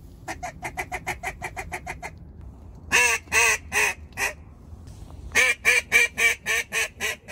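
Mallard duck call blown by a hunter to work passing ducks: a fast chuckle of short clucks, then four long quacks, then a run of about nine quacks.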